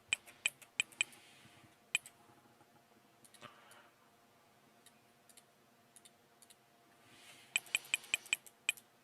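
Clicking and typing on a computer keyboard and mouse: a few clicks at the start, then a quiet stretch, then a quick run of about ten keystrokes near the end.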